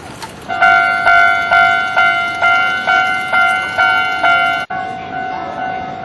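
Japanese level-crossing electronic warning bell ringing in its repeated 'kan-kan' dings, about two a second. Near the end it breaks off suddenly and carries on at a lower volume.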